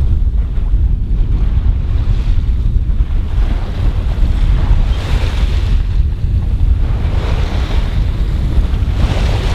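Wind buffeting the microphone in a constant low rumble. Over it, the sea rushes past a sailboat's hull under way, the hiss swelling every couple of seconds as waves pass.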